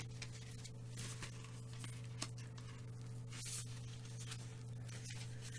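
Soft rustles and faint clicks of a cardboard LP sleeve being handled and turned over, over a steady low electrical hum.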